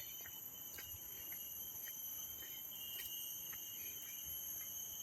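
A steady high-pitched insect chorus, with continuous shrill tones at several pitches, and faint scattered ticks over it.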